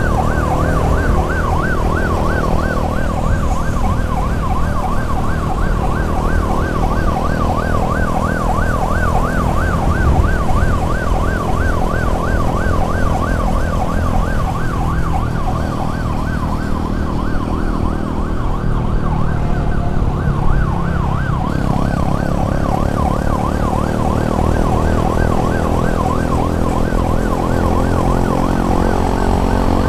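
Emergency siren in a rapid yelp, its pitch sweeping quickly up and down, over a steady low rumble of engine and road noise.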